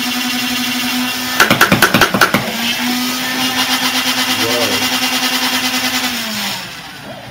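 Zeus flywheel motors of a homemade Nerf Rival blaster spinning with a steady whine, broken about a second and a half in by a rapid rattle of about eight clacks as the Rhino 130 motor drives the Rapidstrike pusher. The whine then resumes and winds down in pitch near the end as the power is cut.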